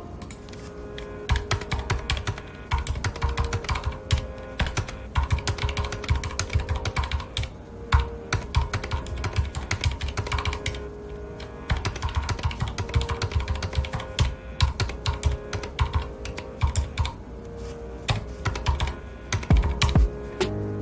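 Fast typing on a mechanical keyboard with red linear switches: rapid key clicks and thocks in runs, with brief pauses about ten seconds in and again near the end.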